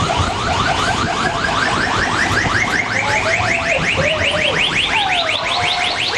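Space Mountain's electronic tunnel sound effect: a rapid, evenly pulsing chirp, about six chirps a second, climbing steadily in pitch as the coaster train goes up through the light tunnel.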